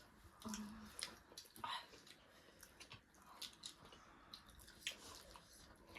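Faint, close-miked eating sounds: soft wet chewing with scattered small clicks and crunches from the mouth.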